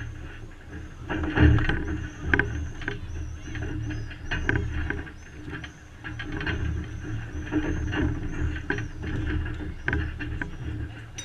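A boxing bout in a ring: a run of short, high squeaks goes on through most of it, over scattered knocks and scuffs from the boxers' footwork and punches.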